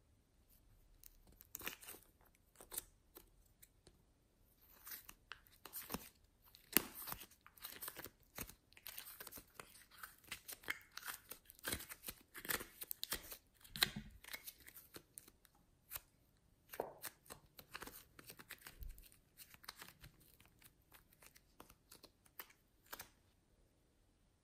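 Thin clear plastic flower mould crackling and clicking as it is flexed and pried open, with soft clay peeling out of it in sticky tearing sounds. The crackles come irregularly, thickest through the middle stretch, with a few more near the end.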